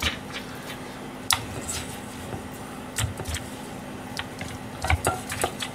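Hands pressing and turning thin pork slices in a dry coating inside a stainless steel bowl, making scattered soft taps and light knocks against the metal. A steady low hum runs underneath.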